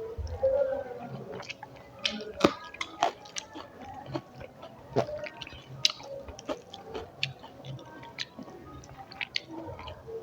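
Close-up chewing of a mouthful of food, with irregular wet clicks and mouth smacks; a sharper click comes about two and a half seconds in.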